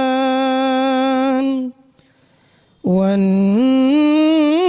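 A man's solo melodic Quran recitation (tajweed) of Surah Ar-Rahman. He holds the last note of "bi-husban" steady, cuts off about 1.7 s in, and after a breath-length pause begins the next verse, "wan-najmu wash-shajaru yasjudan", on a low note that steps upward.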